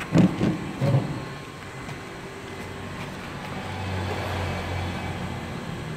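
A couple of loud low thumps in the first second, then a steady low engine rumble, like a motor vehicle running nearby, that swells around the middle and eases off.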